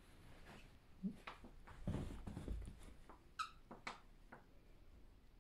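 A Chinese Crested dog giving a brief, high squeaky whine about three and a half seconds in. A few soft clicks and a low rustle come about one to two and a half seconds in.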